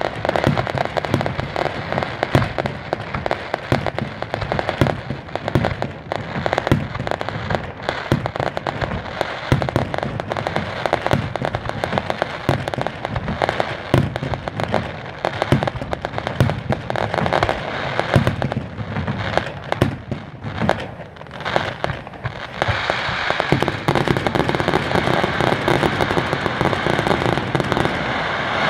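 Fireworks display: a rapid run of aerial shell bursts, with bangs and crackling coming several times a second. About three-quarters of the way through, a dense, continuous crackle takes over.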